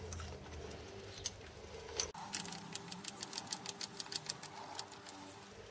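Quick run of light metallic clicks and rattles as the spindle head of a home-built Gingery milling machine is lowered by hand. A low hum underneath cuts off about two seconds in.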